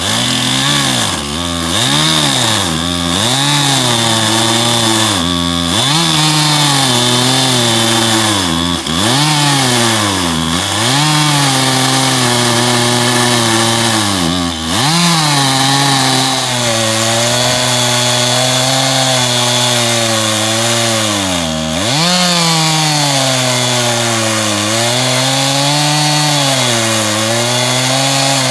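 Stihl two-stroke chainsaw on an Alaskan chainsaw mill, running at high revs as it rips lengthwise through an oak log to make the first flat cut. The engine pitch sags and recovers again and again as the saw loads up in the cut, dipping most often in the first half and steadier later on.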